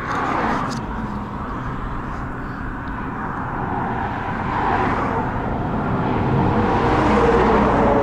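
Road traffic on the highway bridge: a continuous rush of passing vehicles' tyres and engines, swelling louder over the last few seconds.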